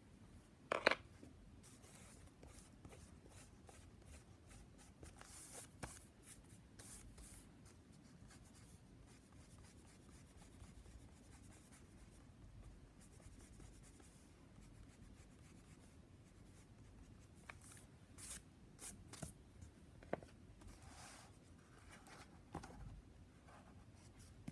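Faint, on-and-off rubbing of a kneaded eraser on sketchbook paper, with a sharp click about a second in and a few small taps later.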